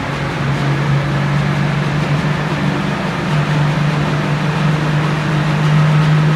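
Tractor engine running at a steady drone, its pitch stepping up slightly about three seconds in, heard over the broad echoing din of a large indoor arena.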